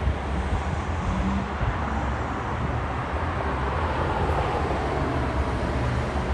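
Steady street traffic rumble, with a box delivery truck driving past.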